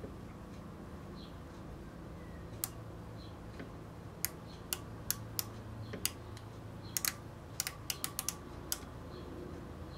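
Scattered sharp metallic clicks from a micrometer being turned and closed onto a machined pulley. One comes early and about a dozen irregular ones follow from about four seconds in, over a faint steady low hum.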